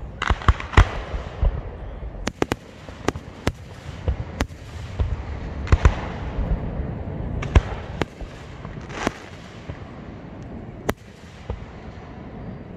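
Aerial fireworks display: a dozen or more sharp shell bursts at uneven intervals, several close together at the start, over a steady low rumble of further bursts.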